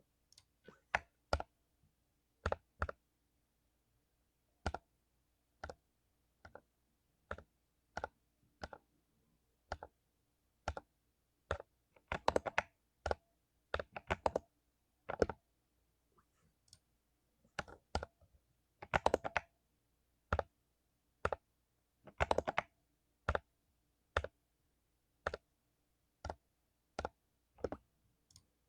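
Mechanical keyboard with lubed Cherry MX Silver linear switches, keys pressed one at a time at a slow, uneven pace of roughly one a second, with a few quick runs of several keystrokes.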